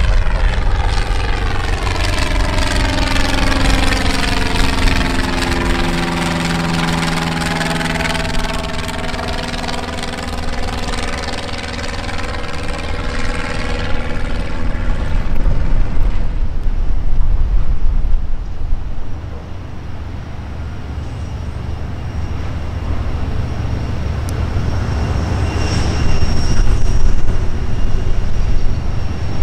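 Single-engine Cessna's piston engine and propeller droning as it flies low overhead, the pitch sliding down as it passes about seven seconds in, then fading away. In the second half, a steady low engine rumble from a light aircraft on the runway.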